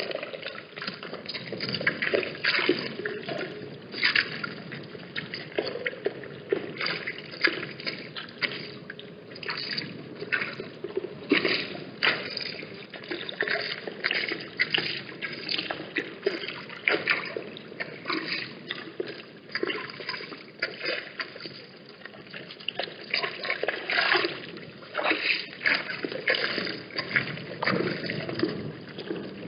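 Water at a watering hole splashing and lapping in a dense, irregular run of small splashes and trickles.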